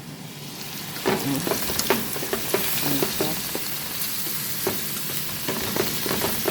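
Sautéed onion, tomato and spices sizzling in hot oil in a pan while being stirred, a utensil clicking and scraping against the pan. The sizzle gets louder about a second in.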